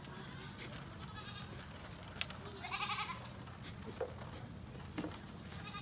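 Sheep bleating: a faint bleat about a second in, then one loud bleat about three seconds in, with a few sharp clicks between.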